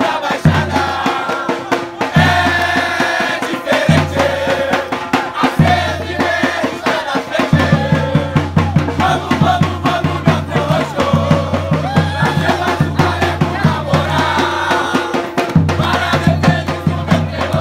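Crowd of football supporters chanting a song in unison over fast, dense drumming and percussion.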